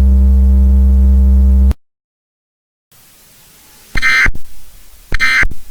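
A loud, steady electronic buzzing drone cuts off abruptly just under two seconds in. After a moment of silence a faint hiss comes up, followed by two short, shrill data bursts about a second apart: the Emergency Alert System end-of-message (EOM) SAME code bursts.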